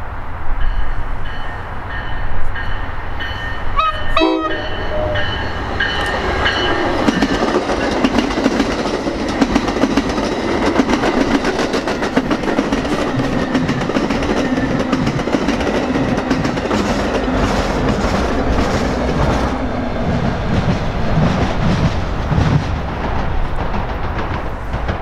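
A train horn blowing a chord for the first several seconds, then a train passing close by with a steady rumble and wheels clicking over the rail joints.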